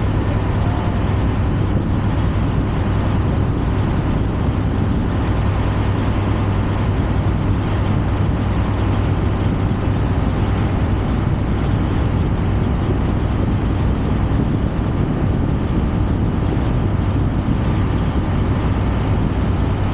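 Steady drone of a motor boat's engine under way, a constant low hum under the even rush of water and wind.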